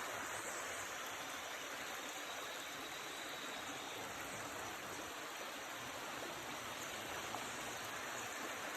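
Floodwater flowing steadily, a continuous even hiss of moving water.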